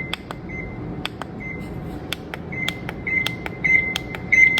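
Electronic beeps at one high pitch from a car-model alarm clock, mixed with sharp clicks of its buttons. The beeps come in short pulses, then grow longer and louder near the end as the volume is turned up.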